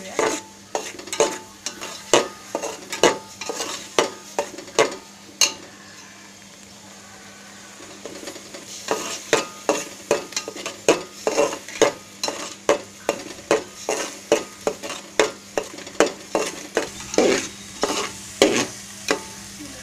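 A metal spoon scrapes and clinks against an aluminium pot as a ground masala paste is stirred and roasted in hot oil, over a low sizzle. The strokes come about once or twice a second, stop for a couple of seconds about six seconds in, then resume faster, about twice a second.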